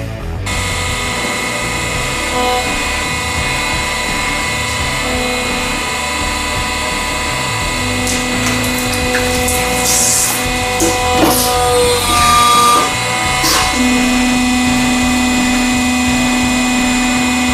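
A 100-ton press machine running with a steady mechanical whine made of several tones, plus a few sharp cracks about ten to thirteen seconds in.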